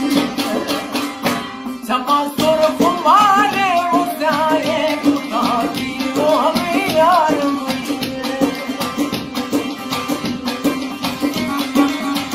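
Folk song: a dambura (long-necked lute) strummed fast and evenly over a steady drone note. A man sings from about two seconds in until about seven seconds in.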